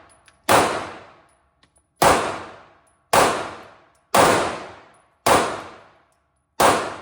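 Pistol fired six times in slow, steady succession, about a second apart, each shot with a short echoing tail. This is a handgun the shooter finds loud and kicky.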